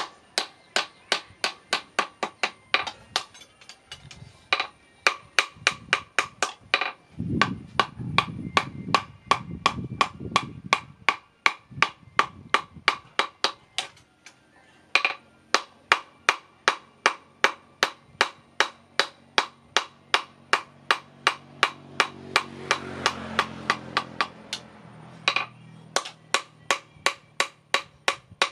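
Hand hammer striking a hot steel knife blade on a small anvil, forging it to shape. The blows come in a steady rhythm of about two to three a second, each with a short metallic ring, broken by a few brief pauses.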